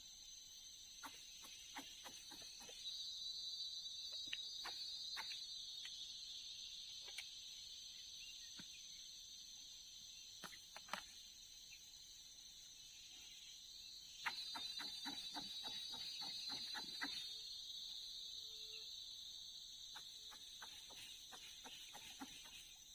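Faint, steady high-pitched trilling of insects, swelling louder about three seconds in and again about fourteen seconds in, each swell lasting around four seconds, with scattered faint clicks.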